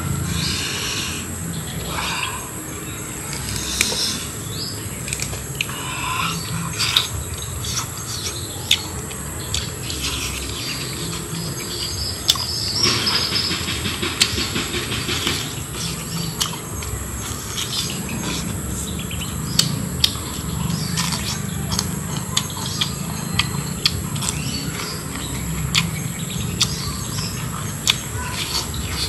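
Eating sounds of grilled pork ribs: many sharp wet smacks and clicks of chewing and lip-smacking. Under them runs a steady high insect drone, with bird chirps about twelve seconds in.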